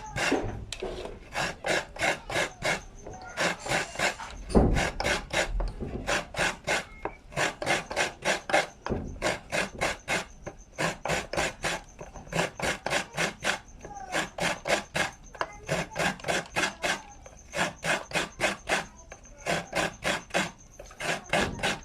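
Mature coconut meat being grated by hand, a steady rhythm of rasping scrapes at about two to three strokes a second, with one heavier thump about four seconds in.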